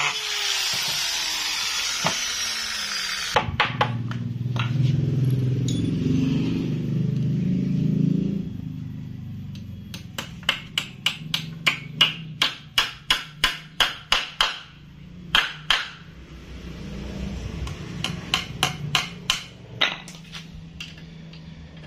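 A power drill spinning down with a falling whine, then hammer blows on wood. The blows come in runs, the longest about two to three strikes a second for some five seconds, with shorter groups after it.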